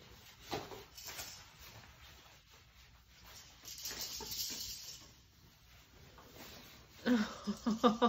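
Faint rustling and handling of a pop-up play tent's fabric, with a few soft knocks early and a louder rustle about four seconds in. A voice starts near the end.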